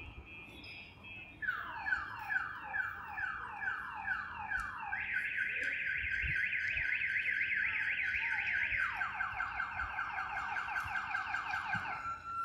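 Car alarm siren stepping through its programmed tones. A steady high beeping gives way, about a second and a half in, to a falling whoop repeated about twice a second. Then comes a fast high warble, and from about nine seconds a lower fast warble, which stops just before the end.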